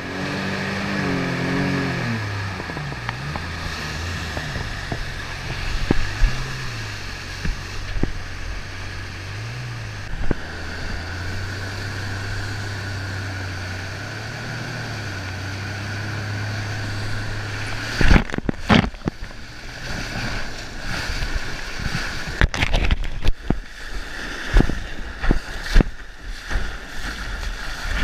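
A jet ski engine runs over rushing river whitewater, its pitch rising and falling as the throttle changes. About 18 s in the engine fades out, and water splashes and knocks hit the camera irregularly as the rider drops into the wave.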